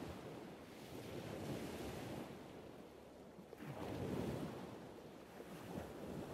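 Sea waves washing in and receding, a rushing surge that swells and fades, loudest about four seconds in.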